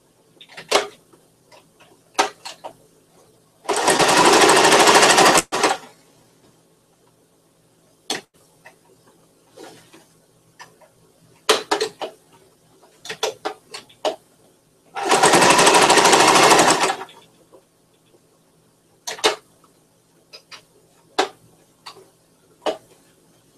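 Electric home sewing machine stitching in stops and starts: many short bursts of a few stitches, and two longer runs of about two seconds each, one about four seconds in and one about fifteen seconds in.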